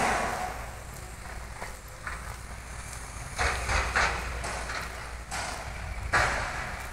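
Wind rumbling on the microphone, with several short bursts of crackling noise, the loudest at the very start and about six seconds in.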